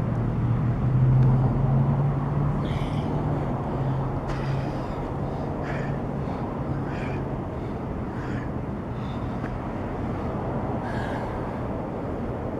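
Wind blowing over the microphone, with an engine hum that swells about a second in and fades away over the next few seconds. A few short high chirps come and go.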